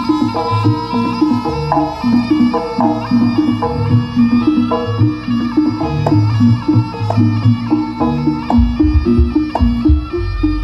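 Live East Javanese jaranan gamelan music: a reed pipe plays a busy melody over steady drumming. Heavy low thumps come in about eight and a half seconds in.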